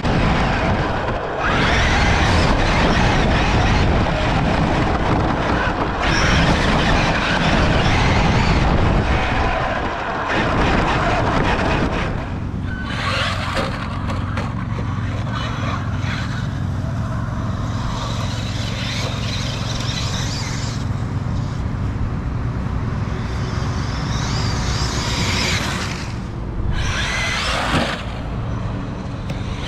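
Traxxas e-Revo electric RC monster truck driving, its motor, drivetrain and tyres making a loud, rough rushing noise. About twelve seconds in it settles to a steadier, lower hum.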